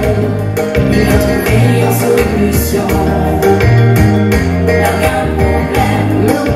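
A vocal group singing into microphones over music with a bass line and a steady beat.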